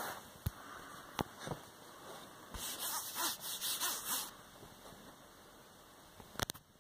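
Dog shifting on bedding right at a phone's microphone: soft rustling and a few sharp knocks, with a run of quick sniffs, about five a second, near the middle.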